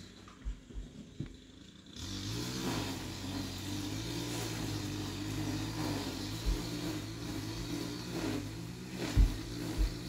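A steady motor-like drone starts suddenly about two seconds in and runs on. Several dull thumps come near the end, the loudest about nine seconds in.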